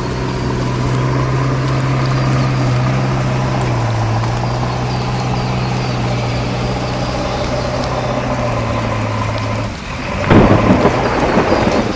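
Heavy diesel engine of construction machinery running steadily under a hiss of rain. About ten seconds in the engine hum drops away, and a loud rumbling crash lasts for about a second and a half.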